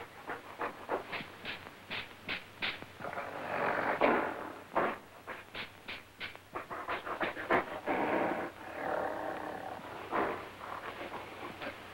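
Panting and grunting of a film gorilla, a man in a gorilla suit, in a few breathy bursts, the longest about eight seconds in. Short sharp clicks and taps come between them.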